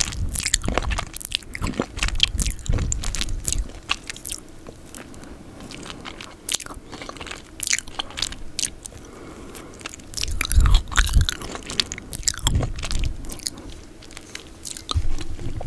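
Close-miked ASMR mouth sounds of eating peanut butter: irregular sticky, wet clicks and smacks of tongue and lips, busier in the first few seconds and again about ten seconds in.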